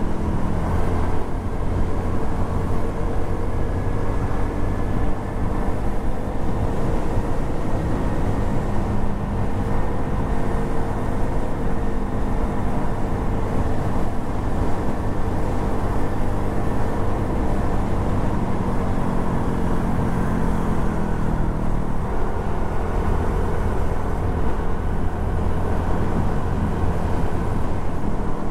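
Suzuki Address 110 scooter's single-cylinder engine running steadily on the road, its pitch drifting gently up and down with speed, under a constant rumble of wind on the microphone.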